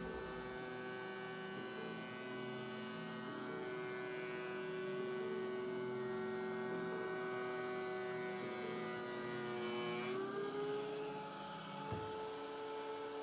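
DeWALT 735 thickness planer with its factory straight knives, planing a walnut board: a steady machine whine with many overtones. About ten seconds in, the whine rises in pitch as the board clears the cutter head and the load comes off the motor.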